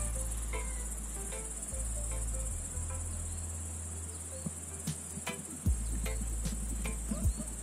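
Crickets in a grassy meadow, chirping in a continuous high-pitched trill, over a steady low rumble.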